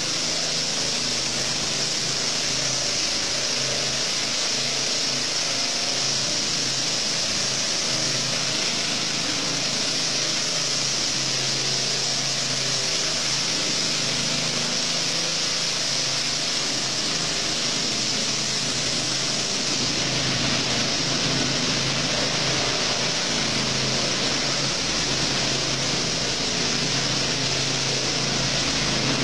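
Small petrol engine of a power trowel running steadily, its rotating blades floating a fresh cement screed floor: an even machine hum under a steady hiss.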